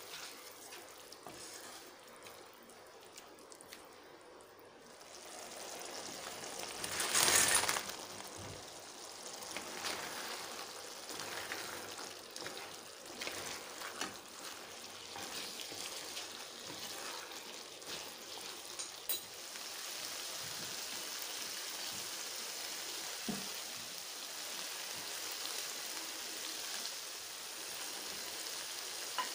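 Chili sauce sizzling and bubbling in a nonstick kadai while a wooden spatula stirs and scrapes it, then tosses fried idly pieces through the sauce. A brief louder burst comes about seven seconds in, and the sizzle turns steadier in the second half.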